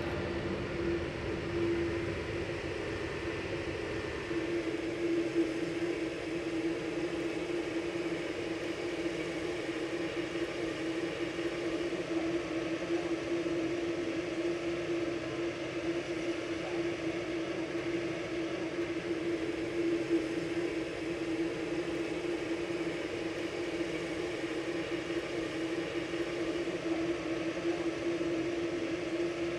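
Jet airliner engines running at a steady pitch: a constant hum over an even rushing noise, with no spool-up or change.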